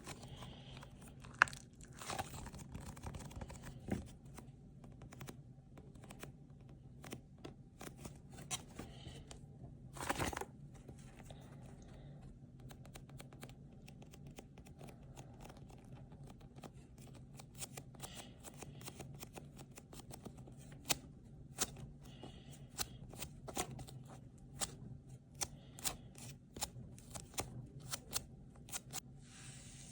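Crinkling, crackling and tearing from handling squishy toys and their plastic packaging, with many scattered sharp clicks and a louder rustle about ten seconds in, over a faint steady hum.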